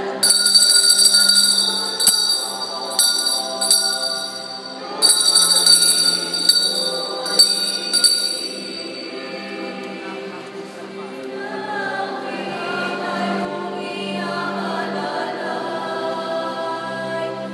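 Choral singing with music. For the first half, bright high ringing with repeated strikes sits over it; these stop about halfway through.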